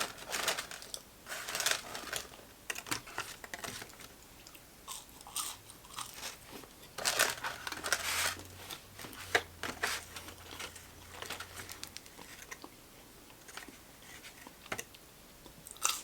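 Close-miked mukbang eating: a person biting into and chewing crispy fried food, with irregular crunches and wet chewing, the loudest crunches about half a second, two seconds and seven to eight seconds in.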